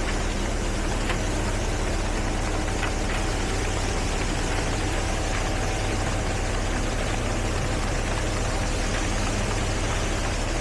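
Heavy construction machinery on a concrete road job running steadily, with a constant low engine drone.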